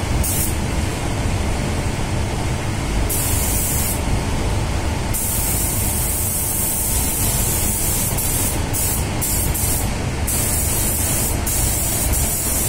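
Paint spray gun hissing in repeated bursts as the trigger is pulled and released, misting blending thinner onto the clear-coat transition edge to melt dry overspray. A steady low rumble runs underneath.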